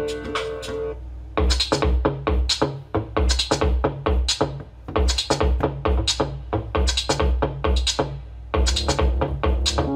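Electronic music with a drum-machine beat and heavy bass, played from a phone through a homemade stereo amplifier built on four D718 transistors into two woofer speakers. The thumping beat comes in about a second in.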